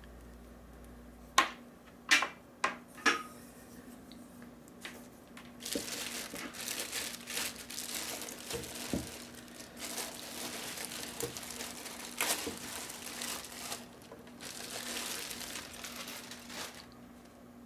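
A few sharp clicks as the power cord is handled, then a long stretch of plastic bag crinkling as the glass plasma-ball globe is slid out of its wrapping, with a brief pause near the end.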